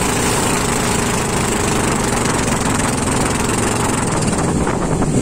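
Small motorboat's engine running steadily at speed, with water rushing and spraying along the wooden hull.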